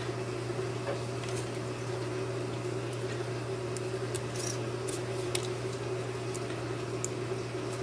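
A steady low hum, with a few faint light clicks scattered through it from servo wires and plastic connectors being handled.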